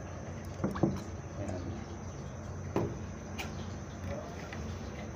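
Cooking oil dripping from a bottle into a nonstick pot: a few short drips and small knocks over a steady low hum.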